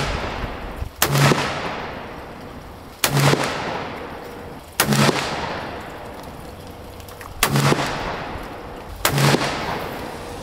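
Colt Cattleman black-powder percussion revolver with a 4¾-inch barrel fired five times, its chambers loaded full with 30 grains of Swiss 3F powder. The shots come about one and a half to two and a half seconds apart, and each loud report rings out with a long echo.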